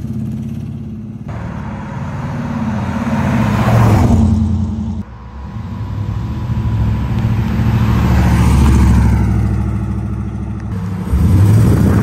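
A 1956 Chevrolet pickup's LS1 V8 through headers and a stainless steel exhaust, driving by: it rises and falls as the truck pulls away, then approaches and passes, with sudden jumps in level about five and eleven seconds in. Near the end it is heard up close beside the rear wheel while the truck rolls.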